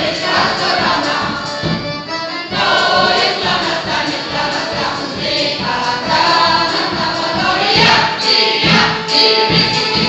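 Amateur mixed choir of senior women and men singing together from songbooks, accompanied by accordion and keyboard with a steady beat.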